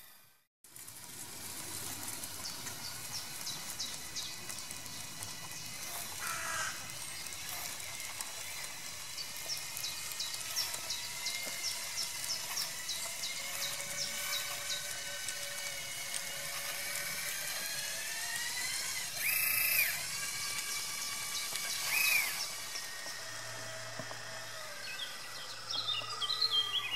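Electric drive motors and gearboxes of a radio-controlled model crawler dozer whining, the pitch rising and falling as the machine changes speed. Rapid light ticking runs through the first half, and there are two brief louder squeals a few seconds apart about two-thirds of the way through.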